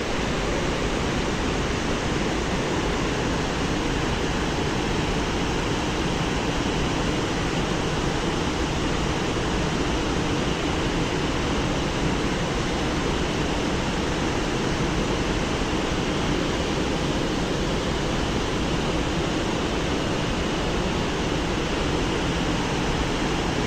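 A fast river rushing steadily, a dense, even wash of water noise that does not change.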